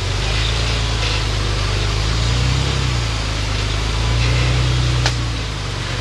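Rock-crawling Jeep's engine running under load as it climbs over rocks, revving up in two swells, with a single sharp knock about five seconds in.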